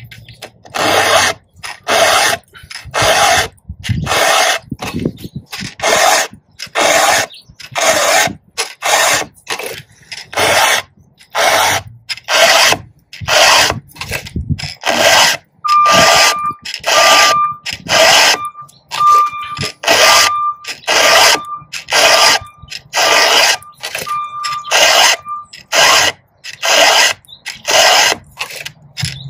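Round file rasping across the cutters of a chainsaw chain, in steady strokes about once a second. Strokes in the middle of the stretch carry a thin, high squeal.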